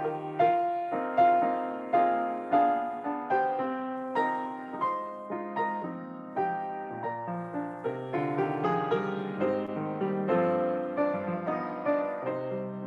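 Piano playing a slow, gentle melody over held bass notes, each note struck and left to ring.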